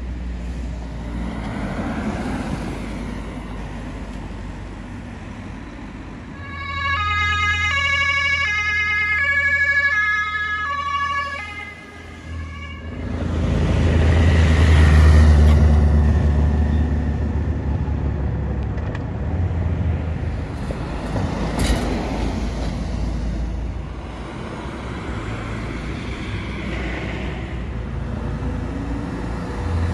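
Emergency vehicles passing on a road: a siren switches rapidly between tones for about five seconds partway through, and the engines and tyres of passing vehicles rush by, loudest just after the siren stops.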